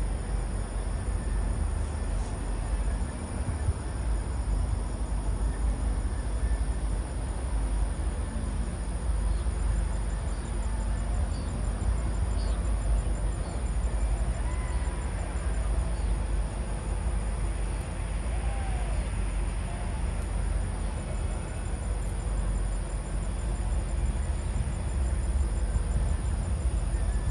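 Crickets chirping in a steady, fast trill over a constant low rumble, with no bangs.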